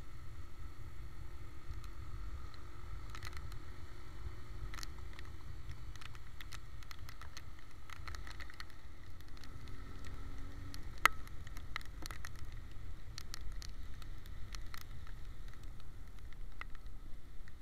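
Steady low rumble of wind and engine from a motorcycle riding through rain, with scattered sharp ticks of raindrops hitting the camera and one louder click about two-thirds of the way through.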